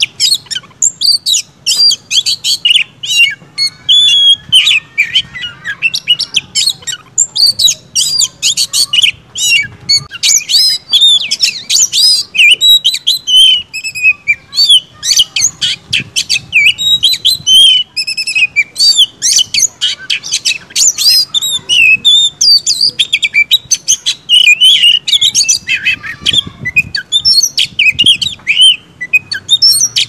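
Oriental magpie-robin (kacer) singing loudly without pause: a fast, varied stream of whistles, chirps and trills, the full non-stop song that keepers call gacor.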